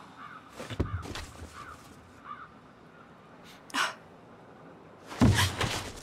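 Shrill, harsh animal squawks, a short one just before the middle and a louder, longer one near the end, with a couple of soft knocks about a second in.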